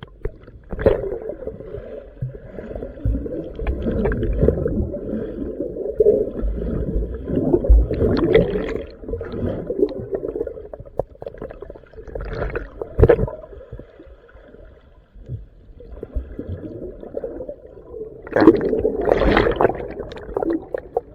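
Ocean surf water sloshing and gurgling, muffled, rising in irregular surges several times.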